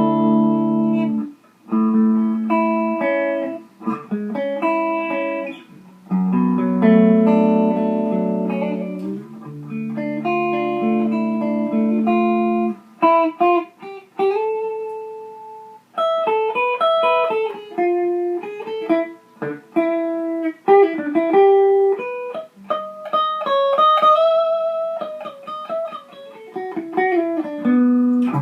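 Les Paul-style electric guitar with high-output pickups played on the clean setting of a modded Fender Champ 600 amp through a 12-inch Celestion G12H speaker. Chords are struck and cut off in a rhythm for about the first half, then it moves to single-note lines and double stops.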